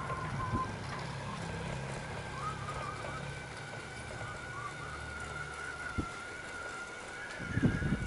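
Riding noise from a small vehicle on a paved lane, with a steady low rumble and a steady high whine. There is a sharp knock about six seconds in and a burst of louder thumps near the end.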